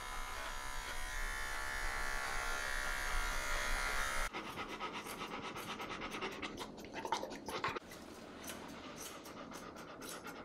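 A Wahl electric pet clipper buzzes steadily while trimming the fur between a dog's paw pads, stopping abruptly about four seconds in. After that comes a dog's rhythmic panting, about three breaths a second, with the snips of grooming scissors trimming the paw fur.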